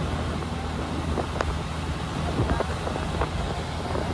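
Fishing trawler's inboard diesel engine running steadily underway, a low drone, with wind buffeting the microphone and a few light knocks.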